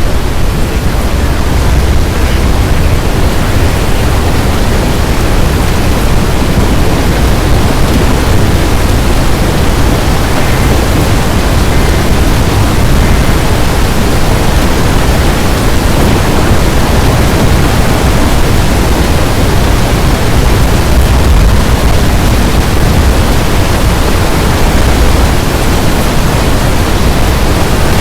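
Strong storm wind rushing over the microphone: a loud, steady roar of noise, heaviest in the deep lows.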